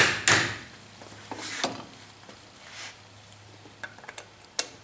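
Two hammer blows at the start, driving a cast-iron end bracket over the table-screw bearing of a Clausing horizontal mill, each a sharp metallic knock. Then quieter handling, and near the end a few small metal clicks as an Allen wrench is fitted into the bracket's screws.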